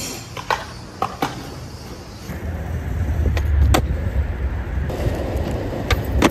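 Skateboard wheels rolling on asphalt with a low rumble, with sharp clacks of the board; near the end, a loud snap as the tail pops an ollie.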